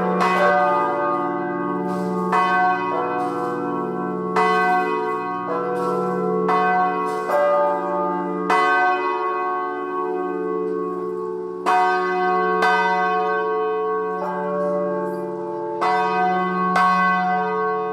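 The large church bells of the Vilnius Cathedral Belfry ringing together. They strike every second or two at several different pitches, and each note rings on into the next over a steady low hum.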